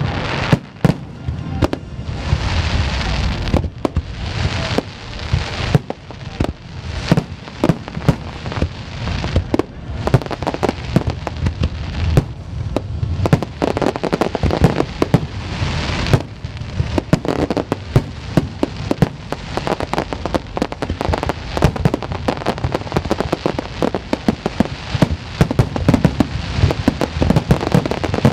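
Aerial fireworks shells bursting one after another, a fast run of booms and sharp reports with crackling between them, growing denser about halfway through.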